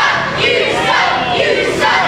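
Crowd of spectators shouting and yelling over one another, many high voices at once.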